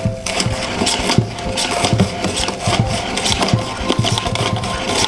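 Hand-cranked plastic onion slicer being turned, its blade chopping through peeled shallot cloves in a steady rhythm of about two to three strokes a second.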